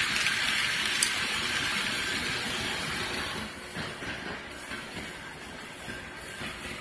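A model train running past on sectional floor track, making a steady rolling rattle of wheels on rails. A single click sounds about a second in, and the noise eases after about three seconds.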